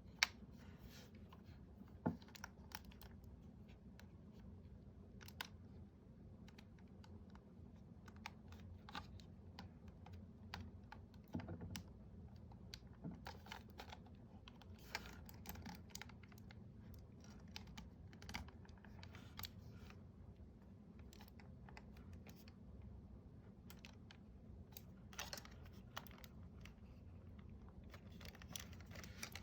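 Faint, irregular small clicks and taps, a few sharper ones among them, over a quiet background.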